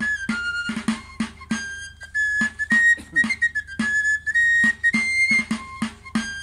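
A Basque dance tune on a txistu, the high three-holed pipe, playing a melody of held and quick notes over a regular drum beat.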